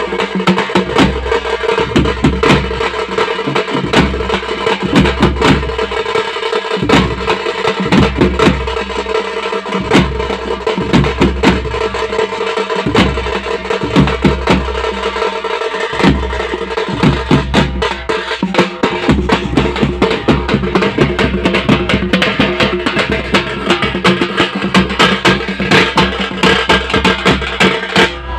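A band-set drum troupe playing a fast, dense rhythm on large double-headed bass drums and a snare drum beaten with sticks, with a steady held tone running underneath.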